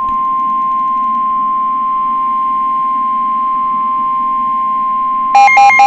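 NOAA Weather Radio warning alarm tone: a steady, single high-pitched tone of about 1050 Hz, broadcast ahead of a new severe thunderstorm warning. Near the end a louder, rapidly alternating two-pitch beeping joins it.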